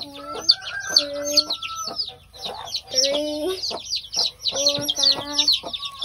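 A brood of newly hatched chicks peeping constantly in quick, high cheeps, while the broody hen sitting with them gives about five low, drawn-out clucks.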